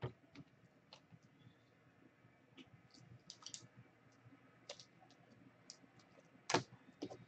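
Faint, irregular small clicks and taps from hands working at a desk, with one louder click about six and a half seconds in.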